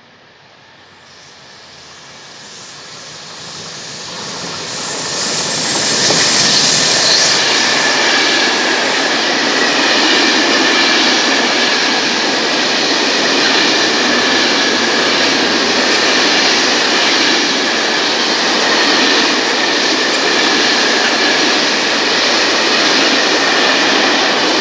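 Freight train behind an E494 electric locomotive, with empty flat wagons, coming through the station: it grows louder over the first six seconds, then passes with a steady rush of wheels on rails and a thin, steady high whine above it.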